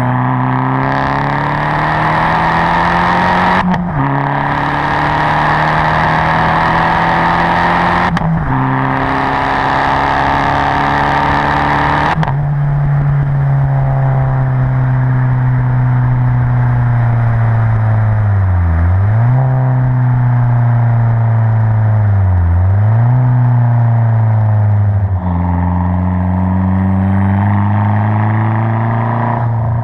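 Turbocharged four-cylinder engine of an Abarth 500 esseesse, with a Garrett 1446 turbo and aftermarket exhaust, heard from inside the car while accelerating through the gears. The revs climb and drop sharply at three upshifts in the first dozen seconds, then run steadier with two brief dips and another drop near the end.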